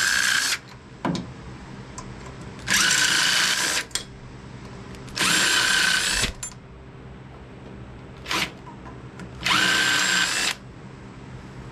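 Hercules 20V cordless impact running in repeated bursts of about a second, each starting with a rising whine, plus one brief blip near the end. It is spinning out the engine's cylinder head bolts, which have already been cracked loose.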